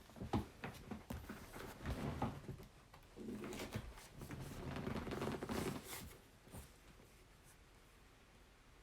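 Trading card packaging being handled: a few sharp taps in the first second, then a few seconds of rustling and scraping, as of cardboard and wrapper being handled or torn, dying away after about six seconds.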